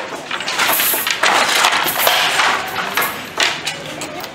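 Wooden carpet handloom clattering and knocking as it is worked by hand, with metallic clinks from the steel rods laid across the warp.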